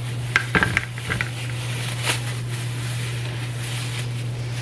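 Knife cutting into a tomato on a cutting board: a few sharp taps in the first second and another about two seconds in, over a steady low hum.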